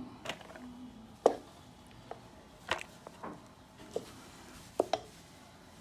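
A series of light, irregular knocks and clicks from food containers and lids being handled during packing, the loudest about a second in and two close together near the end.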